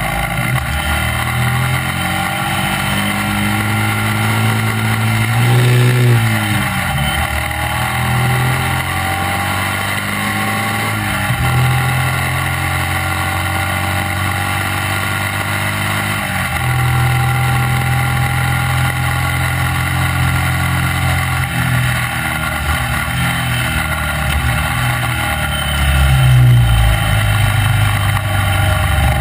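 Classic racing sidecar outfit's engine running hard at racing speed, heard from on board. Its pitch climbs and then drops sharply several times, under a steady rush of wind noise.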